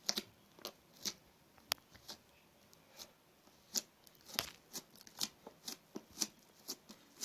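Homemade slime squeezed and worked by hand, giving irregular soft clicks and pops.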